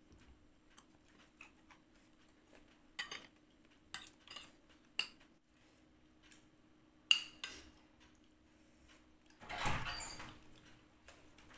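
Metal spoon clinking and scraping against plates and bowls while eating, in scattered sharp clicks, with a longer, louder rustle near the end.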